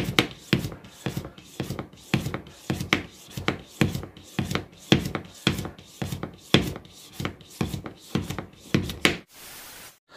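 Hand vacuum pump worked up and down on a plastic vacuum lid of a glass jar, about two strokes a second, each a short puff of air. It is drawing the air out of the jar of cherry liqueur to speed the infusion. The pumping stops about nine seconds in.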